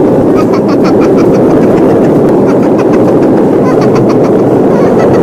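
Boeing 737 airliner's takeoff roll heard from inside the cabin: loud, steady engine and runway noise with rapid rattling clicks, cutting off suddenly near the end.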